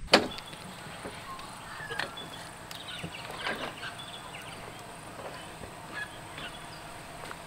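Outdoor ambience with scattered short bird calls over a steady background hiss, after a sharp click at the very start.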